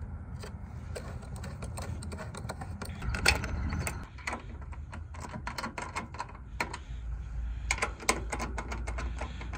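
Socket ratchet clicking in short quick runs as bolts are tightened, with tools clicking against metal.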